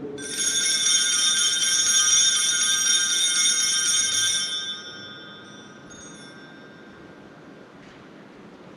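Altar bells shaken at the elevation of the consecrated host, a bright, shimmering jangle of several small bells that holds for about four and a half seconds and then dies away.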